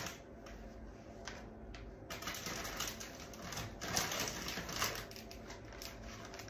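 Rustling and light clicking of food packets and packaging being handled and rummaged through, in irregular bursts that are busiest in the middle.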